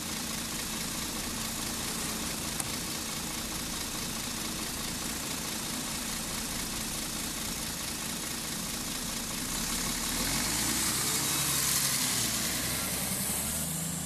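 Mercedes-Benz Citaro bus's 7.7-litre diesel engine running steadily. A hiss swells from about ten seconds in.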